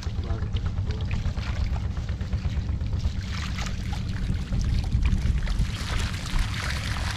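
Muddy water sloshing, pouring and trickling through a fishing net as it is hauled in, with splashes getting busier about halfway through, over a steady low rumble.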